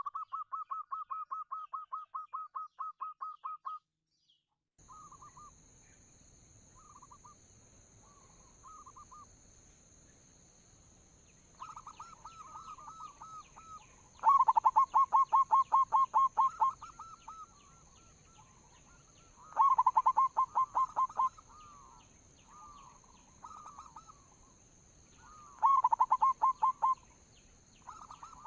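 Zebra doves (perkutut) singing: bouts of rapid, staccato cooing notes repeated several times a second, some loud and close, others fainter. After a short break about four seconds in, a steady high hiss runs underneath.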